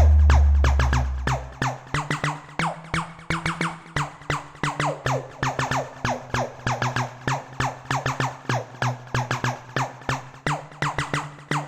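A patch on the Vital wavetable synthesizer playing, with an LFO sweeping its pitch and level. It makes a rapid, uneven stream of short downward-sweeping zaps, about four a second, over a held low drone. A deep bass tone fades out in the first couple of seconds.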